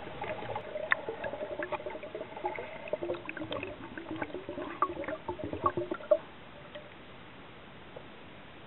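Water gurgling and sloshing around a submerged camera, with many small clicks and knocks, stopping about six seconds in.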